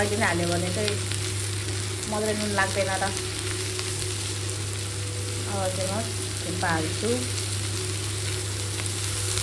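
Shredded cabbage, green peppers and fried pork sizzling in a frying pan while a wooden spatula stirs and turns them. A few brief warbling pitched sounds come and go over the sizzle.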